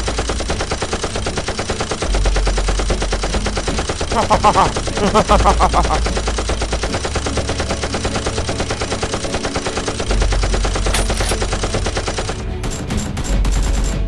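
Rapid, continuous automatic gunfire, a gun sound effect laid over a Nerf gunfight. A brief wavering tone cuts through about four to five seconds in.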